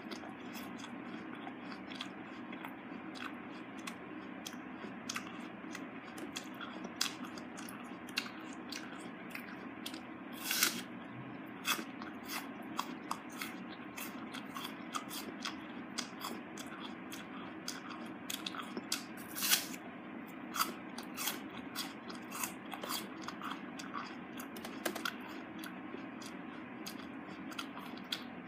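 Close-up mouth sounds of a raw apple being eaten: crisp, wet crunching and chewing with many small cracking clicks, and two louder bites about ten and twenty seconds in, over a steady low hum.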